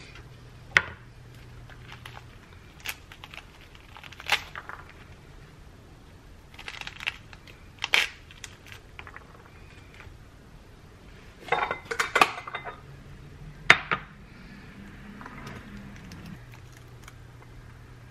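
A pomegranate being cut with a kitchen knife on a plastic cutting board and broken apart by hand: scattered sharp knocks and clicks of the knife and fruit against the board, with a quick cluster about twelve seconds in.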